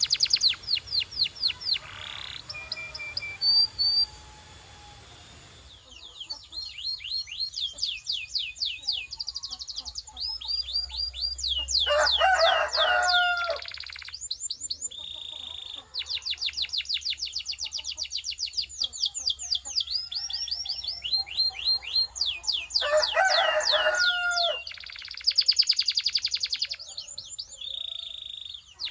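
Canary singing: long rolling trills of rapidly repeated high notes, in phrases separated by short pauses. A lower, fuller phrase comes twice, once in the middle and once near the end.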